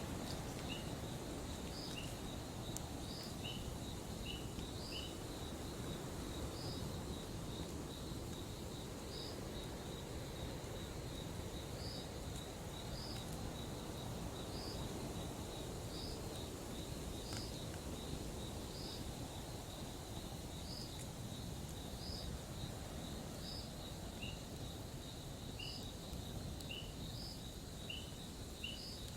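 Outdoor nature ambience. A steady high insect trill runs over a low, even rushing noise, with short chirps repeating every second or two and a couple of faint pops.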